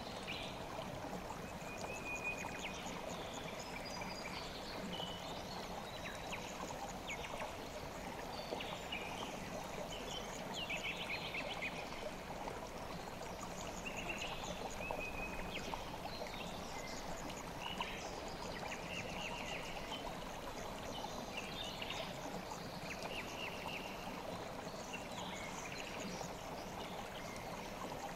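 River water flowing steadily, with small birds chirping repeatedly over it in short high calls.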